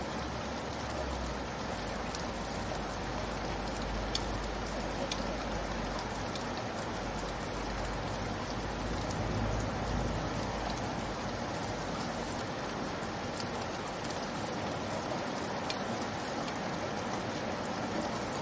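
Steady light rainfall: an even wash of falling rain with scattered sharper drop ticks, over a low rumble that fades out in the second half.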